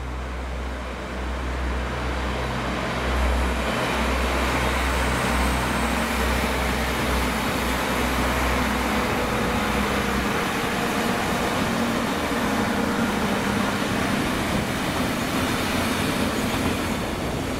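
A train passing close by: the sound builds over the first few seconds, a deep rumble runs under it until about ten seconds in, and steady wheel-on-rail noise carries on after that.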